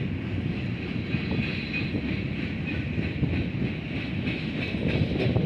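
Union Pacific freight cars rolling past, their steel wheels rumbling steadily on the rails, with a faint high-pitched ringing over the rumble.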